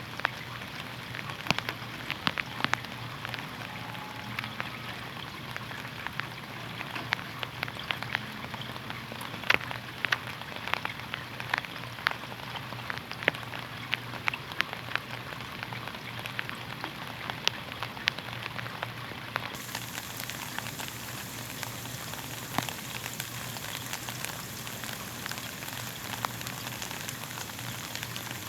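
Rain falling on a hard surface: a steady hiss with many separate drops striking, over a faint low hum. About two-thirds of the way through, the hiss turns brighter.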